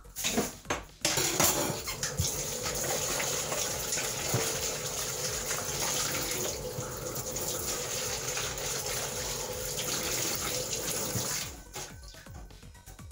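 Kitchen tap running into a stainless steel sink, water splashing over a plastic tub being rinsed by hand. A few knocks come just before the water starts about a second in, and the water is shut off near the end.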